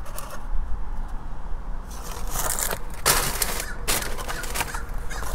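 Paper burger wrapper crinkling and rustling as it is handled and opened, in several rough bursts from about two seconds in, over a low steady rumble.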